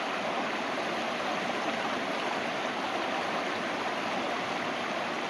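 A small forest brook rushing steadily over rocks and logs in fast white water.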